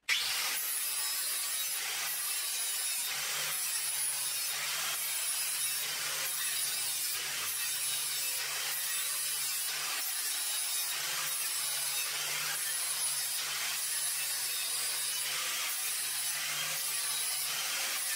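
Angle grinder with an abrasive disc grinding the bevel of a thin steel knife blade held in a sharpening jig, the blade worked in even back-and-forth strokes, each pass swelling the scraping hiss, over a low motor hum.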